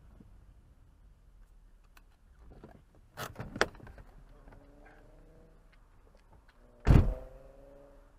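Car door opening with clicks and a clunk about three seconds in, then shut with a loud thump about seven seconds in.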